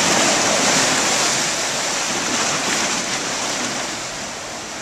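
Seawater surging up through the gaps between a wooden pier's deck boards, a steady rushing splash that grows quieter toward the end. The tide is high enough to flood up through the pier.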